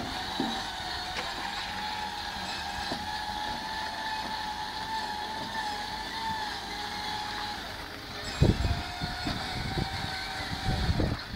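Flatbed tow truck's winch whining steadily as it drags a car toward the loading ramp; the whine drops slightly in pitch as the car meets the ramp, and several knocks and clunks follow near the end.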